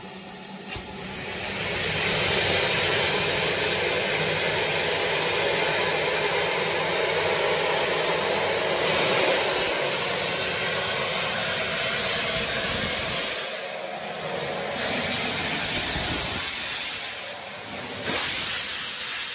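British Railways steam tank locomotive venting steam in a loud, steady hiss that builds up about two seconds in and eases off twice. A sharper burst comes near the end, then it cuts off abruptly.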